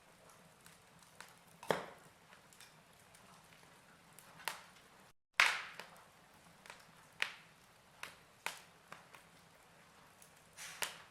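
Wood fire crackling: sharp, irregular pops and snaps over a faint steady hiss, the loudest snap a little after halfway, just after a brief dropout in the audio.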